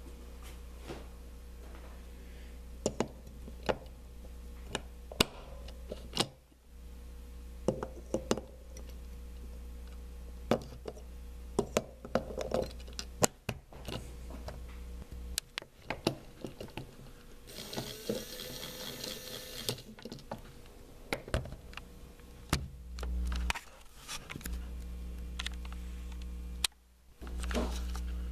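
Scattered clicks, taps and knocks of hands handling a plastic battery-powered toy train engine and tender while a battery is fitted, over a steady low hum. Midway there is a two-second harsh hiss.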